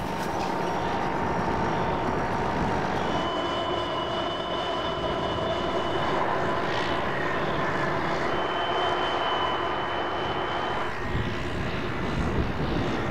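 Light propeller aircraft engine running steadily: a constant drone with a few held whining tones that come and go.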